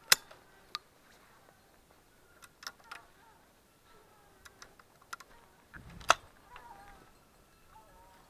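Irregular sharp clicks and knocks of close handling right at the body-worn camera, the two loudest at the very start and about six seconds in, with small clusters of lighter ticks between them.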